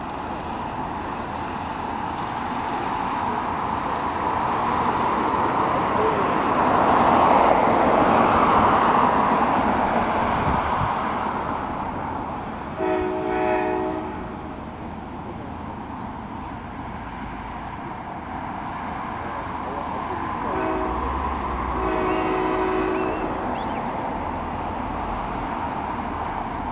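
A broad rushing noise swells and fades about a third of the way in. An approaching NJ Transit ALP-45DP locomotive's K5LA five-chime horn sounds for the road crossings, heard from a distance: two short blasts about halfway through, then a brief blast and a longer one near the end.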